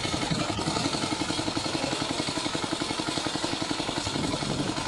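Junk engine on a homemade hovercraft base running steadily as it drives an HVAC blower, with a rapid, even firing beat.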